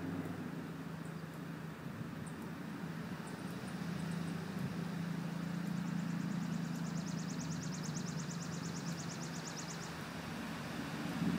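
A steady low engine hum, like a vehicle running at idle, throughout. A rapid high trill comes in for about three seconds past the middle, and there are a few short high chirps.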